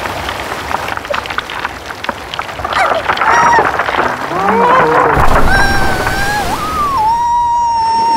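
A crackling, rain-like patter for the first few seconds, then a cartoon voice moaning in wavering, rising and falling glides, ending in one long held note.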